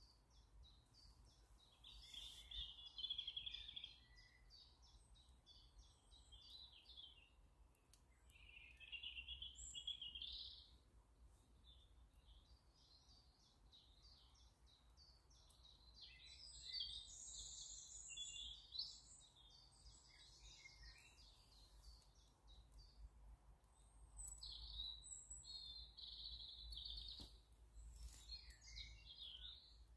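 Faint birdsong from woodland birds: several bursts of high chirping and warbling phrases, over a faint steady low rumble.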